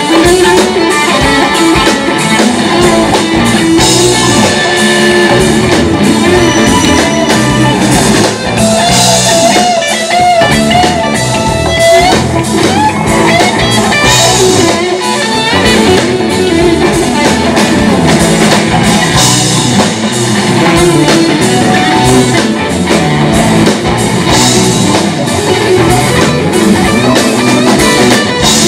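Live rock band playing loudly through a PA: electric guitars over a drum kit, with no break in the music.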